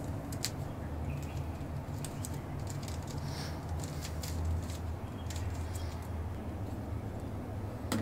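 Plastic 3x3 Rubik's cube lubed with body lotion being turned by hand, its layers clicking in quick, irregular bursts, with a sharper click near the end, over a low steady hum.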